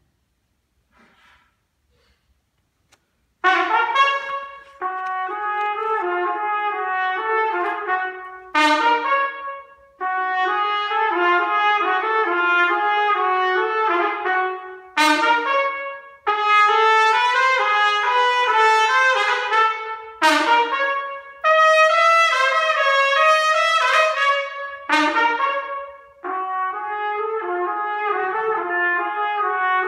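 Trumpet playing a recital piece: after a near-silent pause it enters about three seconds in, then plays phrases of held notes broken by short gaps.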